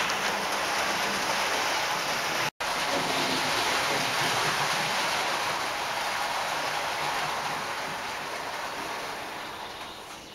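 Model train running along the track: a steady rushing noise that cuts out for an instant about two and a half seconds in and fades away over the last few seconds.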